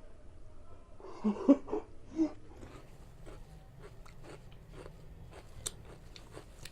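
Close-up sound of a person chewing and eating spicy instant noodles: a few louder mouth noises about a second in, then steady soft chewing with small wet clicks.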